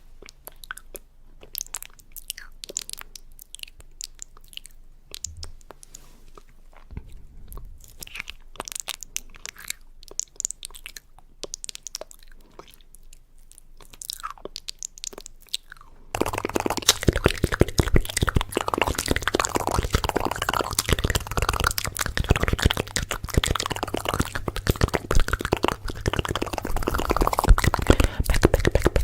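Close-up crisp crunching and crackling: scattered, fairly quiet crackles at first, then dense, much louder crunching starting suddenly a little past halfway.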